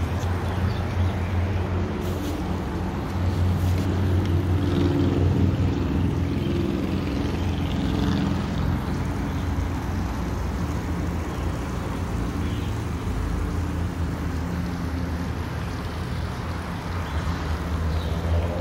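Steady low rumble of a motor vehicle engine running. It swells a little a few seconds in, then settles.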